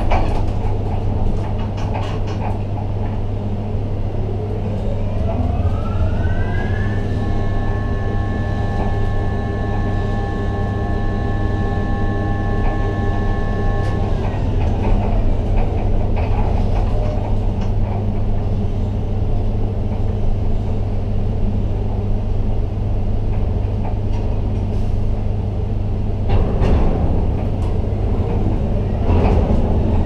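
Ship-to-shore gantry crane's electric drives heard from the operator's cab: a steady low hum, with a motor whine that rises in pitch a few seconds in, holds steady for several seconds, then falls away as the drive accelerates, runs at speed and slows down. A few metallic clatters come near the end.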